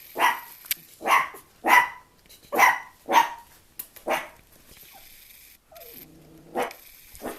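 Chihuahua puppy barking in short, sharp yaps, about two a second for the first four seconds. After a pause there is a longer, lower-pitched call, then two more barks near the end.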